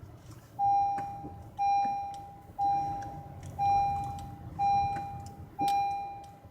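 Honda CR-V's warning chime ringing six times, about once a second, each ding starting sharply and fading, with a couple of faint clicks beneath it.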